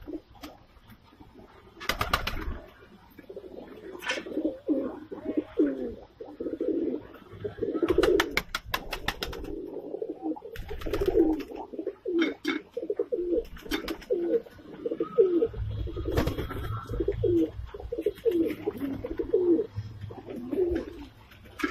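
A flock of Indian high-flyer pigeons cooing, many low coos overlapping almost without pause, with a few sharp clicks or knocks among them.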